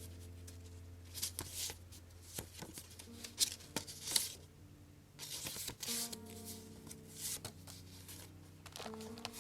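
Paper rustling and sliding in a run of short, irregular crisp sounds as journal pages and scrap papers are handled, over quiet background music.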